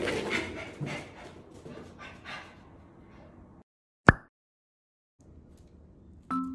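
A miniature schnauzer and a kitten chasing each other on the floor: scrabbling paws and bumps, with some whimpering from the dog, fading out after about three and a half seconds. After a short silence comes a single sharp pop, and near the end a chiming mallet-percussion tune begins.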